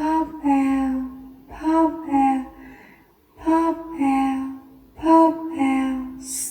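A high voice saying the phrase "pop out" in a sing-song way, repeated four times about every second and a half, each time a short higher note falling to a longer lower one.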